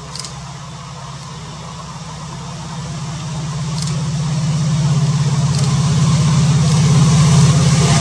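EMD WDP4D diesel locomotive's two-stroke V16 engine running with a steady low drone, growing louder as the locomotive approaches and draws level. A few faint clicks sound over it.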